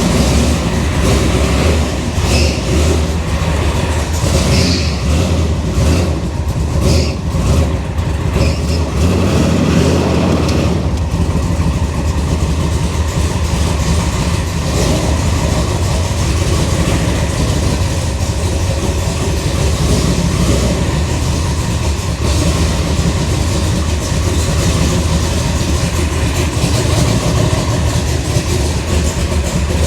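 Freshly rebuilt GM LS4 5.3-litre V8 running steadily on its first start after the rebuild.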